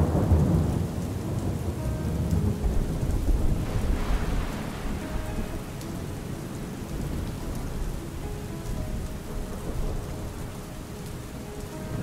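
Steady rain falling, with a low roll of thunder that fades out over the first four seconds or so.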